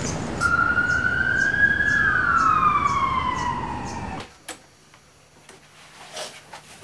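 A single siren wail over a steady rushing noise. It rises for about a second and a half, then falls slowly. Both cut off suddenly about four seconds in, leaving a quiet room with a few faint taps.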